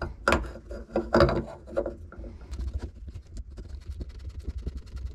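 Hands handling and threading a black plastic nut onto a threaded plastic through-hull fitting: rubbing and scraping about a second in, then a long run of small rapid clicks.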